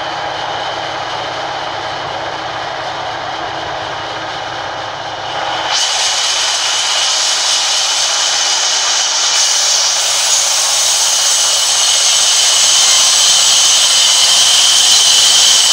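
Sawmill band saw running idle, then biting into a log about six seconds in: the steady machine noise turns into a louder, higher hiss with a steady high whine as the blade cuts through the wood.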